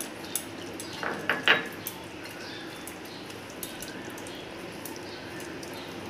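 A hand mixing raw prawns into a wet mustard-and-poppy-seed paste in a stainless steel bowl: soft squelching with light clicks against the steel, and a short louder clatter about a second and a half in.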